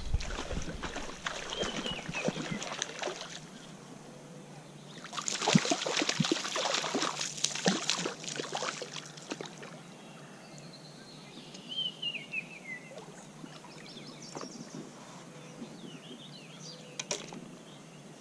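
Water splashing and sloshing in a shallow trout stream as a hooked trout is played to the surface, loudest for about four seconds near the middle and quieter after. A songbird chirps a few times.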